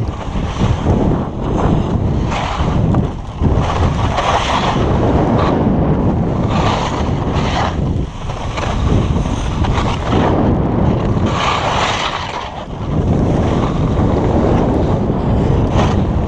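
Wind buffeting the GoPro HERO3+ microphone in loud, uneven gusts, with skis sliding over snow beneath it.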